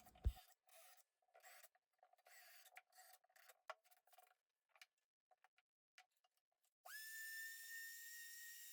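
Near silence with faint, scattered rubbing and scraping noises and a few light clicks. About seven seconds in, a steady high-pitched electronic tone starts and holds.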